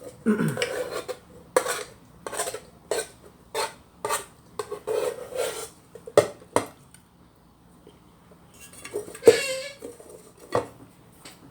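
Spoon scraping and clinking against the inner pot of a rice cooker while eating from it: a run of short scrapes and clinks, a lull, then the loudest scrape about nine seconds in.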